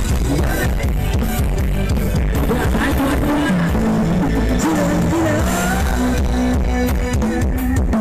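Loud music blasting from a Thai rot hae parade sound-system truck: heavy bass under a wavering melody line, continuous without a break, picked up on a phone microphone close behind the truck.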